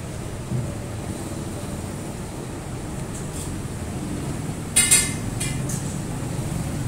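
Steady low background rumble, with a short sharp clatter about five seconds in.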